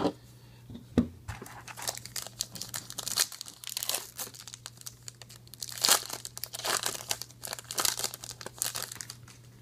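Foil trading-card pack wrapper crinkling and tearing as it is pulled open by hand, in irregular rustling bursts, with a sharp knock about a second in.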